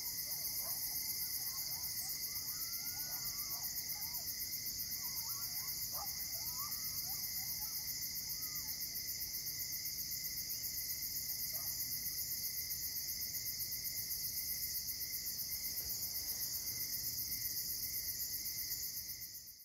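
Night chorus of crickets and other insects trilling steadily in a fast, even pulse, with a lower steady trill beneath. Faint distant animal calls rise and fall in pitch through the first few seconds and once more around twelve seconds in. The sound fades out near the end.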